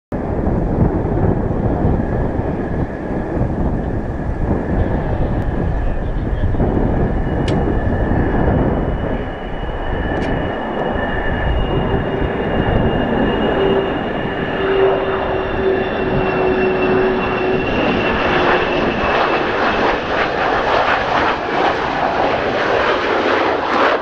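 F-4EJ Kai Phantom II's twin J79 turbojets whining on final approach, heard through heavy wind buffeting on the microphone. The jet noise grows louder and harsher over the last few seconds as the aircraft comes in low for touchdown.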